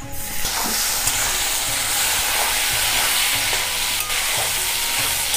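Chopped tomato hitting hot mustard oil and frying onions in a metal kadai: a loud, steady sizzle that starts suddenly, with a metal spatula stirring through it.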